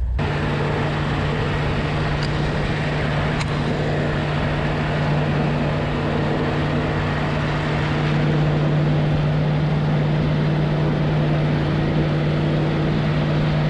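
Willys Jeep driving at a steady speed: an even engine hum holding one pitch, under a haze of wind and road noise. It gets slightly louder about two thirds of the way through.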